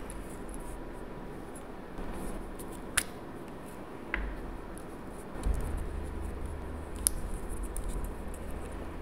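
A plastic nail-art gel pen handled in the fingers: a sharp click about three seconds in as its cap comes off, a smaller click a second later and another sharp click near the end, over low rubbing and bumping.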